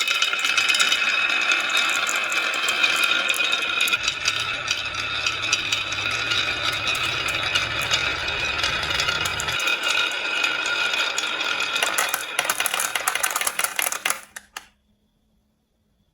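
Many marbles rolling and clattering down a HABA wooden marble-run track, a dense, continuous rattle that stops abruptly about fourteen seconds in.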